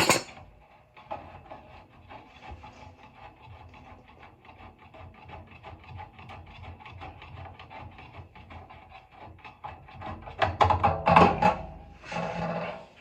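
Hand tools working metal fittings on a gas water heater's burner and pilot assembly during disassembly: a long run of quick small clicks, with louder knocks and clatter at the start and again about ten seconds in.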